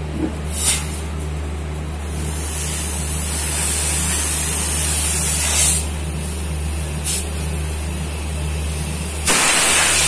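Nitrogen gas blowing out of an air conditioner condenser coil's open outlet pipe into a rag held over it: a rushing hiss in short spurts, a longer hiss for a few seconds in the middle, and the loudest burst near the end. This is a nitrogen flush, purging the condenser of dust and liquid. A steady low hum runs underneath.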